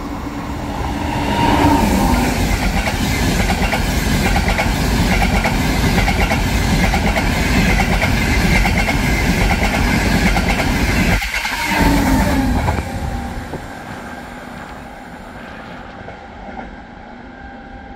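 Trenitalia Frecciarossa high-speed train passing through the station at speed without stopping: a loud rush of wheel and air noise that builds over the first two seconds and holds for about ten. A whine sounds as the front and again as the back of the train go by, with a brief dip just before the end, and then the sound fades as the train recedes.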